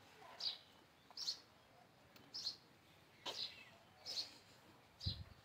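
A small bird chirping over and over: short, high, falling chirps a little under a second apart, with a brief low thump near the end.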